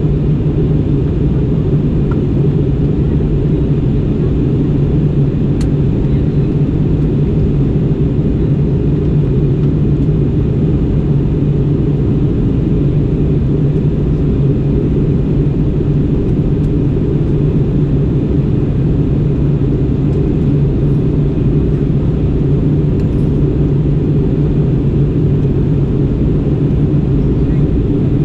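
Steady cabin drone inside an Airbus A320neo airliner in descent: engine and airflow noise, a low even rumble with a stronger hum underneath, unchanging throughout.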